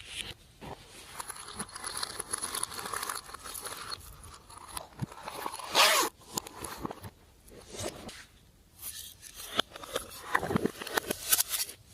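Glossy slime being worked by hand: irregular sticky crackles, small pops and scraping as it is stretched and pressed, with a louder burst about halfway through.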